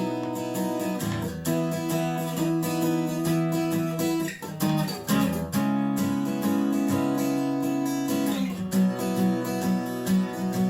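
Washburn WD11SCE acoustic-electric guitar being played in a sound test: chords strummed and left ringing, changing every few seconds, with a quick run of strums about halfway through.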